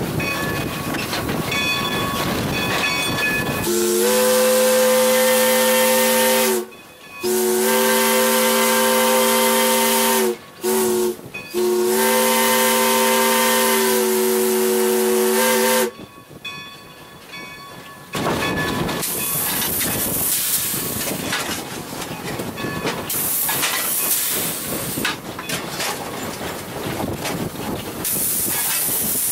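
Steam locomotive whistle pulled from the cab, sounding a chord of several notes in four blasts, long, long, short, long: the grade-crossing signal. After the whistle stops, the locomotive's steam hisses steadily as it runs.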